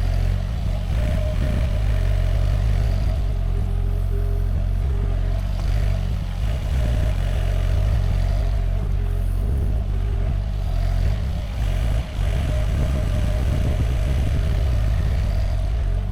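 Sany SY50U mini excavator's diesel engine running steadily under work, with a hydraulic whine that comes and goes as the boom and bucket move.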